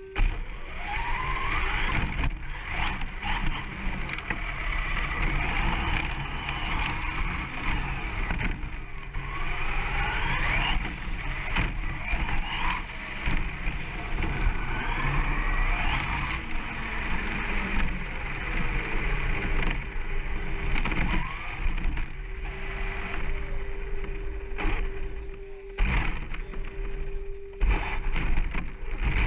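Onboard sound of a brushless 1/10-scale short course RC truck driving over gravel. The electric motor whines up and down with the throttle over constant tyre and gravel noise, with frequent knocks from bumps. A steady tone comes back as it comes to rest near the end.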